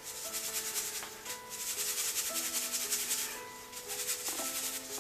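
Coarse whole-grain wheat flour being shaken through a round metal drum sieve: a rhythmic, gritty rustling of meal against the mesh and rim. Soft background music with held notes plays underneath.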